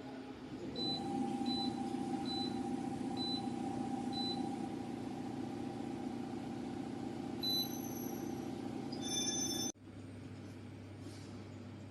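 A machine running with a steady hum. Short high beeps sound about every 0.8 s over the first few seconds, and a few more come just before the hum cuts off suddenly near the end, leaving a lower, quieter hum.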